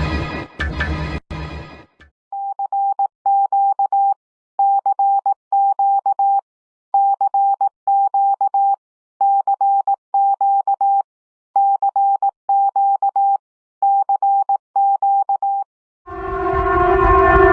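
Emergency alert tone: a single steady pitch beeping in groups of three, six groups with short pauses between them. A louder many-toned alarm cuts off at the start, and a loud siren with several tones starts near the end.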